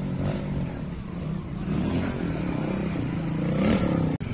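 Trials motorcycle engine being revved, its pitch rising and falling with throttle blips and climbing about three and a half seconds in.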